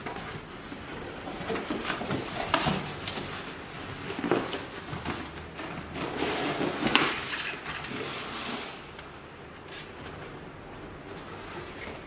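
Cardboard carton being handled and slid off a packed coffee grinder: cardboard rubbing and scraping against cardboard and polystyrene, with a few sharper scrapes, quieter after about nine seconds.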